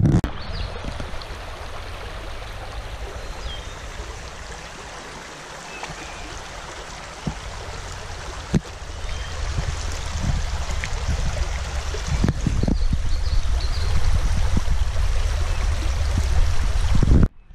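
Flowing water of the Sheepscot River's west branch: a steady rush of river water that grows louder about halfway through, with a deep rumble underneath and a few short knocks.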